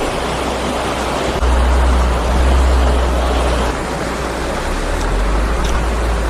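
Steady rushing of flowing stream water, with a low rumble underneath that swells about a second and a half in and eases around four seconds.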